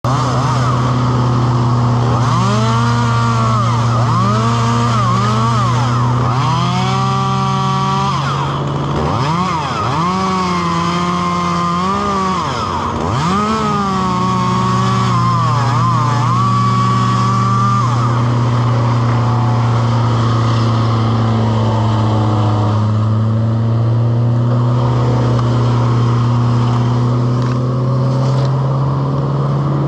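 Chainsaw revving and cutting into the oak, its pitch repeatedly rising and dipping under load for a little over half the time, then stopping. A steady engine drone runs underneath throughout.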